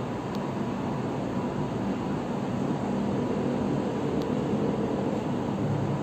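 Steady low rumble of distant city traffic, swelling a little in the middle, with two faint ticks.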